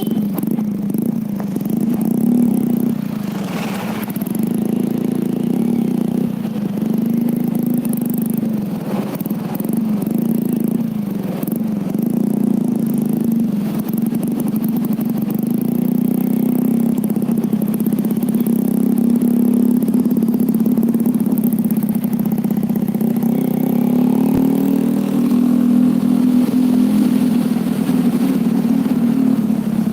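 Vehicle engine running steadily under way, its hum rising and dipping slightly as the speed changes.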